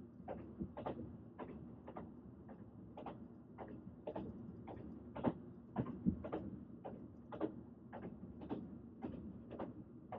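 Train running on rails: a steady low rumble with the wheels clicking over rail joints about twice a second.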